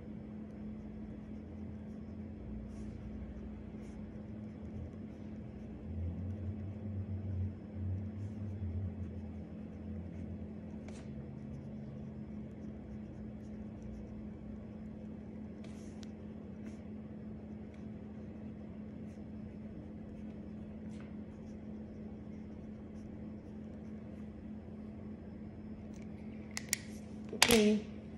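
Steady electrical or appliance hum in a quiet room, with a low rumble swelling for a few seconds and a few faint ticks, then a brief louder sound near the end.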